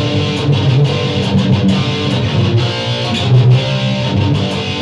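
Electric guitar played through a Boss ME-25 multi-effects on a metal patch from its Heavy sound library: a continuous riff of changing notes and chords.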